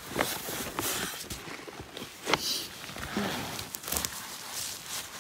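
Footsteps and rustling through vegetation, with scattered sharp snaps and crackles of twigs and brush.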